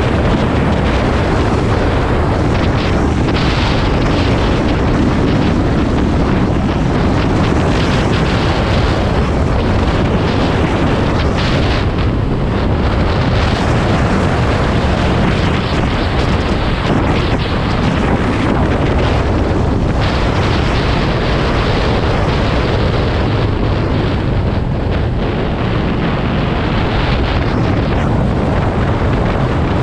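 Wind buffeting the microphone of a moving motorcycle at road speed: a loud, steady rush of noise, heaviest in the low end, with no distinct engine note standing out.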